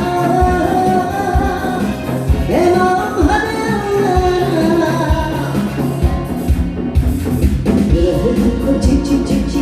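A song played loud: a voice sings long held notes with vibrato over a backing track with a steady drum beat.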